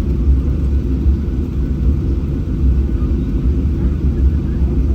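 Steady low cabin rumble of a Boeing 737-800 on the ground before takeoff, its CFM56 engines at idle, heard from inside the passenger cabin.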